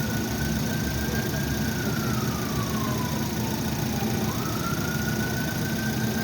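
A faint emergency-vehicle siren wailing, its pitch falling slowly and then jumping back up about four seconds in, over a steady engine idle and background noise.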